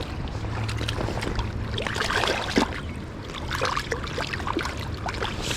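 Water splashing and trickling in a river, in short irregular splashes over a steady low rumble.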